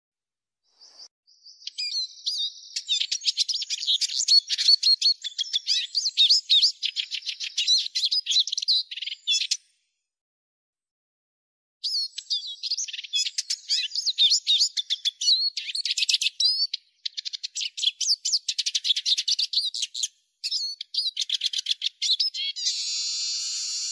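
Eurasian siskin singing: long runs of fast, high twittering song, broken once by a pause of about two seconds, with a drawn-out buzzy note near the end.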